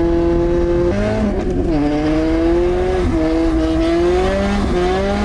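Lada Priora's four-cylinder engine with the muffler removed, running loud at high revs. Its pitch holds, drops about a second in as at a gear change, then climbs, dips briefly near the three-second mark and climbs again.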